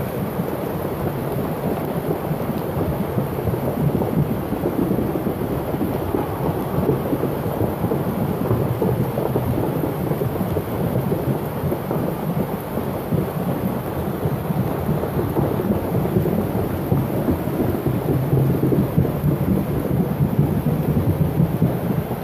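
Flash-flood torrent of muddy water rushing down a paved street, a steady low rushing noise, with rain falling.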